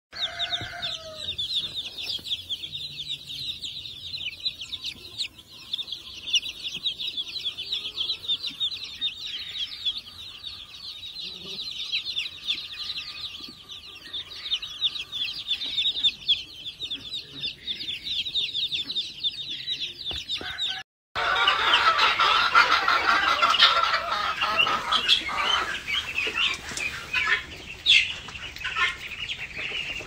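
A crowded brooder of chicks, including black Kadaknath chicks, cheeping continuously: a dense chorus of short, high, falling peeps. After a brief break about two-thirds through, a louder and denser flock of peeping young birds follows, lower in pitch.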